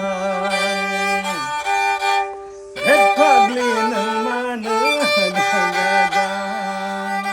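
Bodo serja, a bowed folk fiddle, playing a sliding, wavering melody over a steady drone note. It drops away briefly about two seconds in, then resumes.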